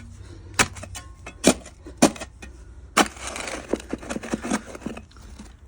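Shovel blade digging into soil in a post hole: several sharp chops into the dirt, then a stretch of scraping as earth is scooped out.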